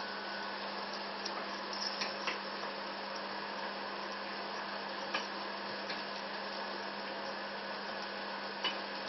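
Steady background hiss with a constant low hum, broken by a few faint clicks.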